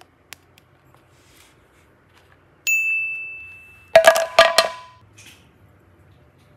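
A single bright ding rings out and fades over about a second, then a quick flurry of sharp, ringing hits follows just under a second later.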